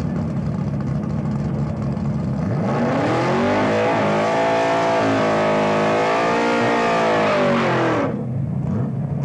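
Drag car doing a burnout at the start line. The engine rumbles low, then about two and a half seconds in revs up and is held high while the rear tyres spin in smoke. About eight seconds in it drops abruptly back to a low rumble.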